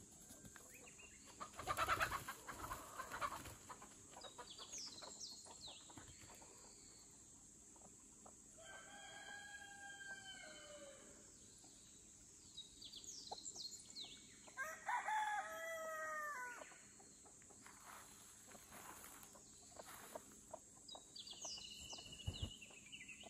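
Domestic rooster crowing twice, each crow about two seconds long, about nine and fifteen seconds in.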